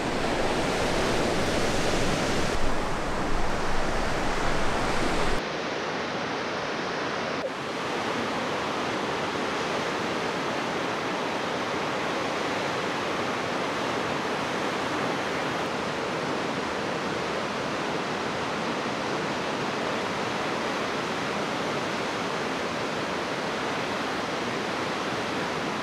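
Steady rush of ocean surf, with waves breaking and washing in. About five seconds in, the deep rumble underneath drops away and a lighter, even wash carries on.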